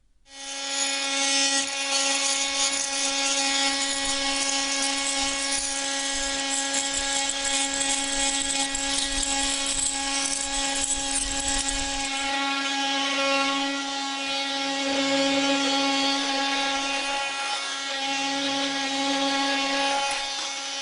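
Bosch GOP 250 CE 250-watt oscillating multi-tool running, a steady buzz with a rough grinding noise over it. It comes on just as the sound starts and its tone shifts slightly about twelve seconds in.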